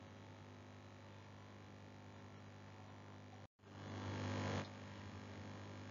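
Low steady electrical mains hum with light hiss from the narrator's recording, cut to dead silence for a moment about three and a half seconds in. Just after, a short rush of noise lasting about a second, then the hum again.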